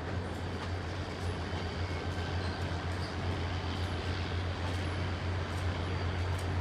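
EMD GP30 diesel locomotive's turbocharged 16-cylinder engine running with a steady low rumble as it pulls the train slowly past, with a few faint clicks.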